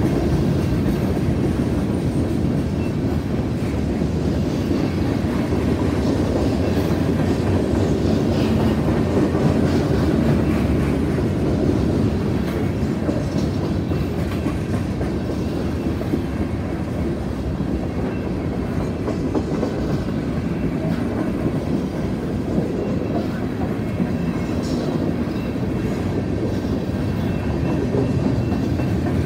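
Freight cars of a CSX mixed freight train (tank cars, covered hoppers and gondolas) rolling past: a steady, continuous rumble and clatter of steel wheels on the rails.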